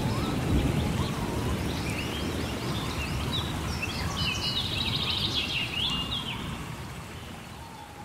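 Birds chirping and trilling over rain, with a low rumble of thunder dying away; the bird calls are busiest around the middle, and everything fades out near the end.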